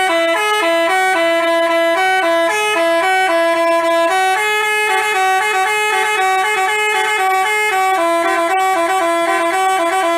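Telolet basuri musical air horn on a bus playing a tune of quick stepped notes.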